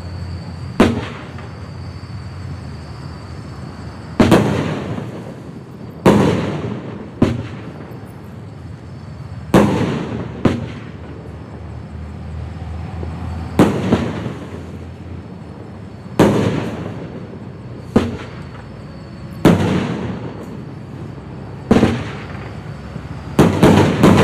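Black Cat 'Tiger Tails' fireworks cake firing. Sharp reports come roughly every two seconds, some in close pairs, and each dies away over a second or so. A quick flurry of several reports comes near the end.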